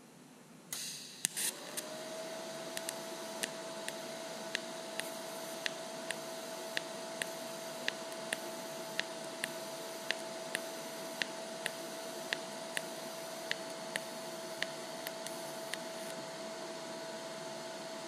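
DC TIG welding arc from a Lincoln Electric Aspect 230 on 14-gauge 304 stainless steel, pulsing at a frequency of about 0.9. The arc starts with a short crackle about a second in, then runs as a steady hum with a pop about twice a second as the current pulses, a popping sound typical of a low pulse frequency.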